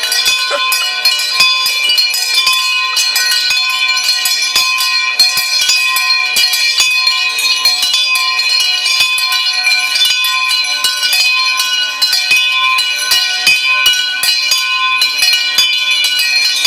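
Many bells rung as fast as possible all at once: a dense, unbroken jangle of overlapping strikes over steady ringing tones.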